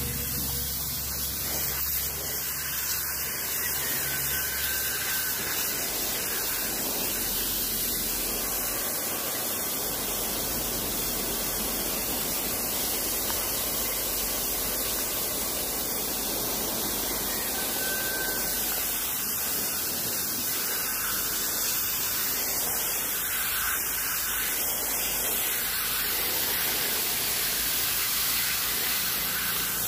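Water spraying from a hose nozzle onto an air-conditioner coil's aluminium fins, a steady hiss.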